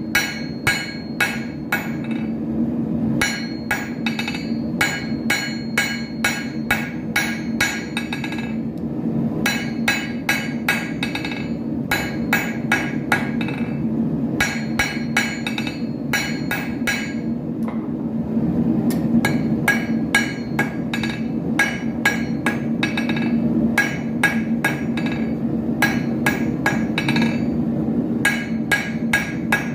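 Hammer striking iron on an anvil, forging an arrowhead: runs of sharp, ringing blows a few per second, broken by short pauses, over a steady low hum.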